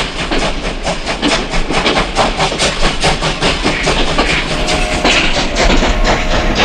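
Train running, its wheels clattering quickly and evenly over the rail joints. A steady held tone joins in about four and a half seconds in.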